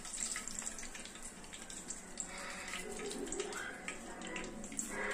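Curry leaves sizzling in hot oil: a steady hiss dotted with many small crackles and pops.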